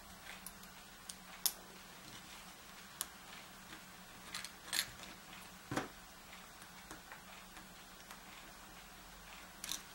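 A thin metal switch strip and a small screw being handled and screwed down into a wooden board with a screwdriver: faint, scattered small clicks and light scrapes, the sharpest about a second and a half in.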